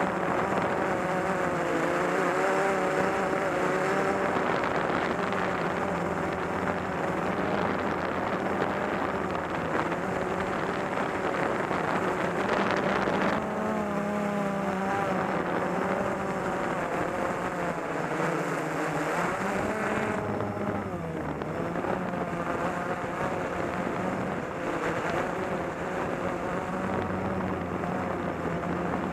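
Small drone's electric motors and propellers buzzing in flight, a steady multi-toned whine whose pitch wavers continually and shifts noticeably about halfway through as the throttle changes.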